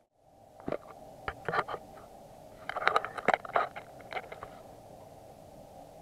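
Light clicks, knocks and scrapes of metal parts and tools being handled while a brass blank is set up in a lathe chuck, irregular and clustered about three seconds in, over a faint steady hum.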